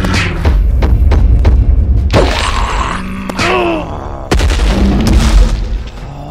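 Cartoon fight sound effects: a quick run of booms and thuds over a deep rumble, then a few short, wavering cries.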